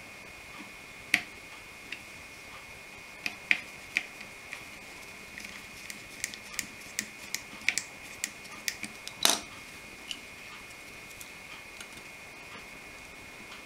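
Small screws and a screwdriver clicking and tapping against the chassis of a Tillig TT-scale ICE 1 model power car as the two housing screws go back in. The clicks are scattered over the first ten seconds, the loudest about nine seconds in, over a faint steady high tone.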